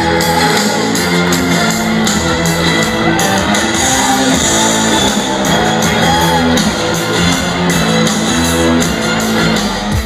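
Live country-rock band playing an instrumental passage led by electric guitars, heard from within the audience through a phone microphone, with some crowd shouting mixed in.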